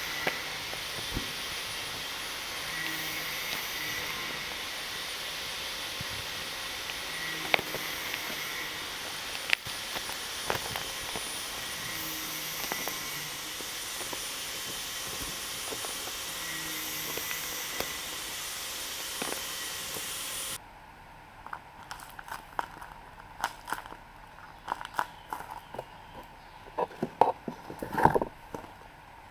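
Steady background hiss with a few sharp clicks. About two-thirds of the way through it cuts abruptly to a quieter room, where paper crinkles and clicks irregularly as a paper squishy is handled, busiest near the end.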